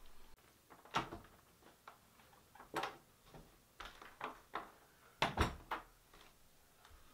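A door being handled, with a series of separate knocks and bumps as someone moves about a small room. The loudest pair of thuds comes about five seconds in.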